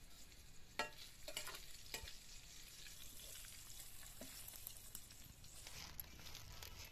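Pork pieces sizzling in a steel pan, with a few clinks and scrapes of a metal spoon stirring them in the first two seconds.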